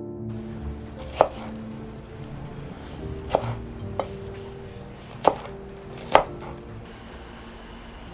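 Chinese cleaver chopping green garlic stalks on a wooden cutting board: about five sharp, irregularly spaced knocks of the blade on the board, over soft background music.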